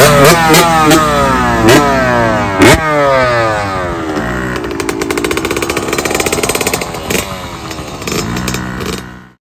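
Small Yamaha petrol dirt bikes running close by, one held at idle while the throttle is blipped again and again so the engine note repeatedly rises and falls. A sharp knock sounds about three seconds in, and the sound cuts off suddenly just before the end.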